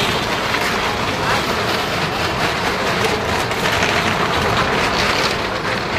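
Steady loud rumble of a vehicle circling the planked wooden wall of a well-of-death stunt drum.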